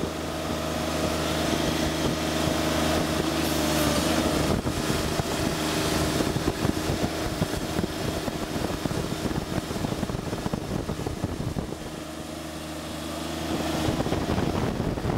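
Yanmar 3TNV70 three-cylinder diesel running. It runs steadily at first, rises to a higher, louder speed about four seconds in, drops back to a slower steady run about twelve seconds in, and speeds up again near the end.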